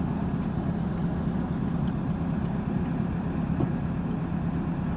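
Diesel engine of heavy earth-moving machinery running steadily with a low, even hum.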